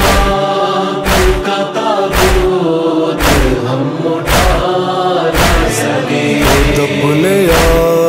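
Noha recitation interlude: a chorus of voices chanting long held, wavering notes over a steady heavy beat, about one thump a second.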